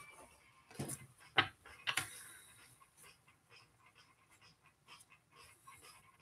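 Three short, sharp knocks about a second in, roughly half a second apart, then faint rhythmic breathing sounds.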